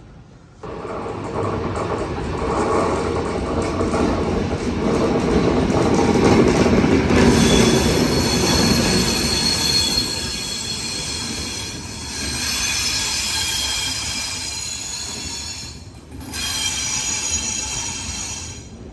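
ZSSK passenger train arriving at a station: the electric locomotive and then the coaches roll past with a rumble, and from about seven seconds in the wheels and brakes squeal with several steady high tones as the train slows.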